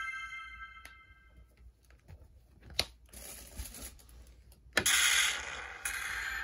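Pachislot machine sound effects: a ringing electronic chime fades out, a few sharp clicks follow, and about five seconds in a loud, hiss-like noisy burst comes as the machine's screen changes scene.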